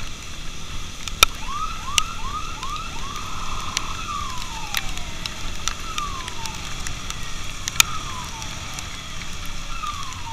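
Escort motorcycle siren: a quick run of short rising whoops, then falling wails repeating about once a second, over motorcycle engine and road noise. A few sharp clicks stand out.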